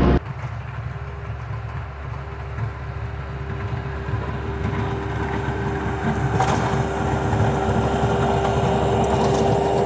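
Skid steer engine running steadily with a constant hum, growing gradually louder.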